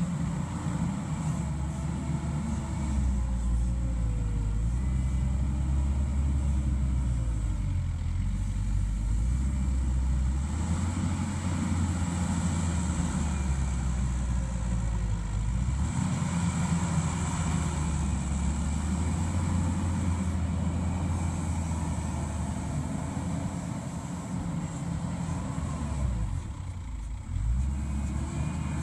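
Mustang MTL325 compact track loader's diesel engine running hard as the machine pushes dirt, its pitch and level rising and falling with the work. Near the end it eases off briefly, then comes back up.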